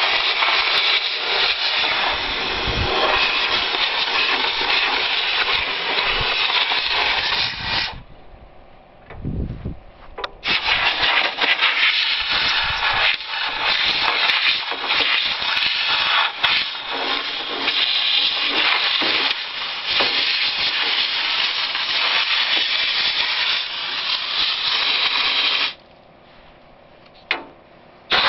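Compressed air hissing loudly from a long blow-gun wand as it blasts packed hay chaff out of a discbine. The blast stops twice for a couple of seconds, about a third of the way in and again near the end.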